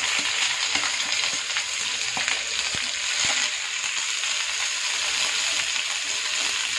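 Sliced onions and garlic frying in hot oil in a non-stick pan, a steady sizzle, stirred with a wooden spatula that gives a few light taps and scrapes against the pan.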